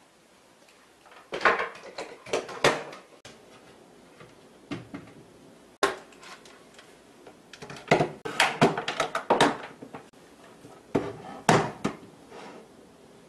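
A wall cabinet being opened and small items, a hair dryer among them, being handled and set down on its shelf: scattered knocks, clacks and rustles in several short clusters, with one sharp click about six seconds in.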